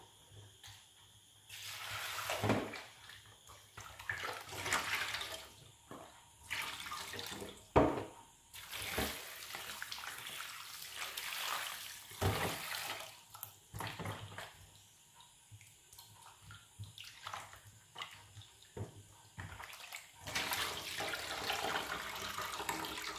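Raw chicken pieces being washed by hand in a plastic bowl of water: irregular sloshing and splashing with short pauses. Near the end, water pours from the bowl into a stainless steel sink.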